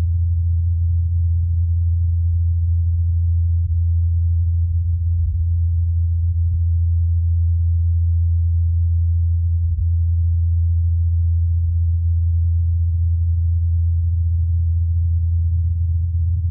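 The Ingenuity Mars helicopter's counter-rotating rotor blades making a steady low hum during flight, recorded by the SuperCam microphone on the Perseverance rover.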